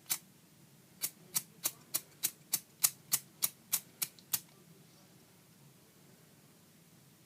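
Zippo lighter's hinged metal lid being flicked open and snapped shut again and again: a single sharp click, then a regular run of about a dozen metallic clicks, roughly three a second.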